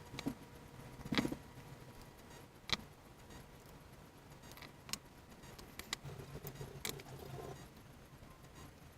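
Small hard parts clicking and clinking as they are handled during assembly: about half a dozen sharp clicks a second or two apart.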